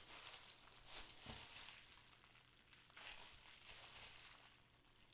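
Faint crinkling and rustling of disposable plastic gloves as hands press and bend a raw whole chicken flat on a metal grill pan, with a few soft knocks.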